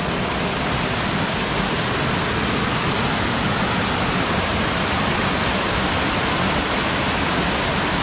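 Steady rush of a waterfall's falling water, an even roar with no breaks.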